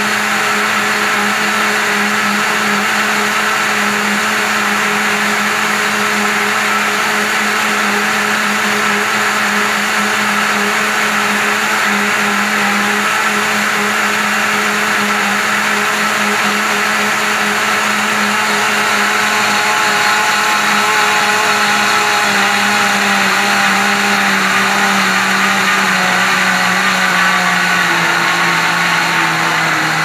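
Cadence Robust 1000-watt blender running steadily at speed, blending chunks of fruit with milk into a smoothie. Near the end its motor pitch slides down as it slows.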